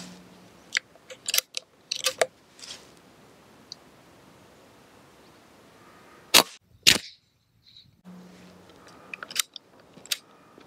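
Brocock Bantam Sniper HR pre-charged air rifle being fired from the bench: a run of sharp mechanical clicks as the action is worked, then two loud cracks about half a second apart a little past halfway, and more clicks near the end. The shot report is not dead quiet despite the rifle's large shroud.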